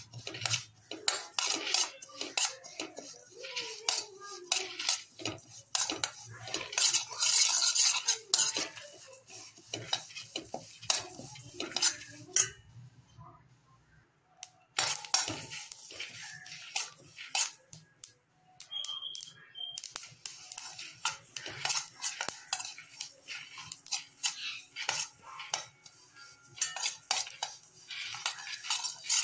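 Metal spoon scraping and clinking against a stainless steel pan as it stirs black sesame seeds and lentils, in irregular strokes with a short pause about halfway.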